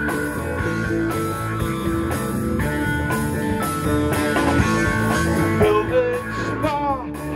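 Live rock band playing an instrumental passage: guitar over bass, drums and keyboard, with falling pitch glides near the end.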